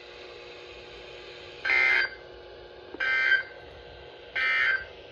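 Three short buzzing bursts of SAME digital data from NOAA Weather Radio receivers, each about a third of a second and about 1.3 s apart. This is the end-of-message code that closes the severe thunderstorm warning broadcast. Under the bursts is a faint steady hum.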